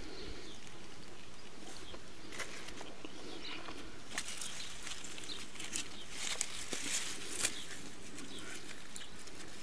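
Soft rustling and light clicks as strawberry plants are parted by hand and a berry is picked, over a steady outdoor background.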